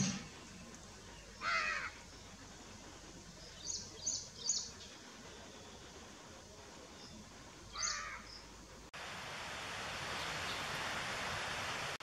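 Outdoor ambience with a few separate bird calls: a harsh call about one and a half seconds in, a quick run of three short high chirps around four seconds, and another call near eight seconds. About nine seconds in the sound switches abruptly to a steady, dense chorus of insects.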